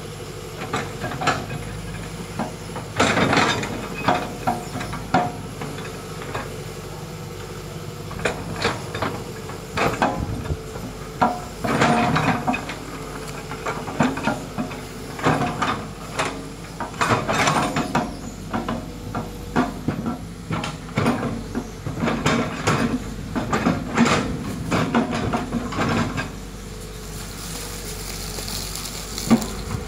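Hitachi hydraulic excavator working: its diesel engine runs steadily under load while the steel bucket digs and scrapes through soil, with repeated clanks, rattles and scraping. A hiss comes in near the end.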